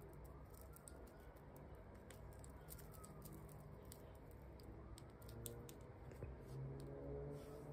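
Faint, irregular clicking of a metal crochet hook and long acrylic fingernails while yarn is being crocheted by hand.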